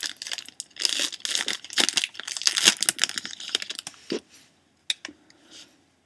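A trading card pack's wrapper being torn open and crinkled, a dense run of ripping and crackling for about four seconds, then a few light clicks as it stops.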